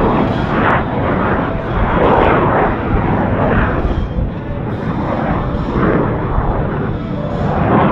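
CF-18 Hornet's twin General Electric F404 turbofans running at high power on a display pass, a loud, ragged crackling rumble that swells and fades.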